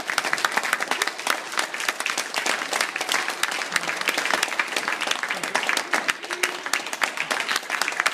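Audience applauding: many hands clapping densely and without a break.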